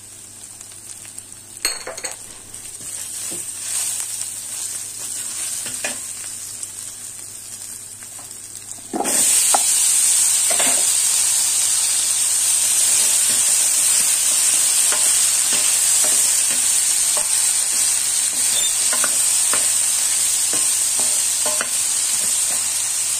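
Onions and tomato paste sizzling in oil in a steel pan, with a wooden spoon scraping and knocking against the pan. About nine seconds in, the sizzle jumps suddenly much louder and stays steady as diced raw potatoes fry in the hot oil and are stirred.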